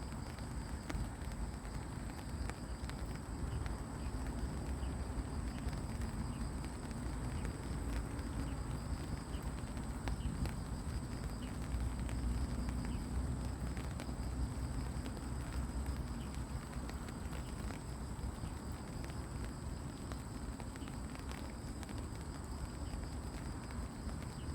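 Steady, gentle rain falling on fallen leaves and grass: a constant patter with many small drops tapping distinctly on the leaves.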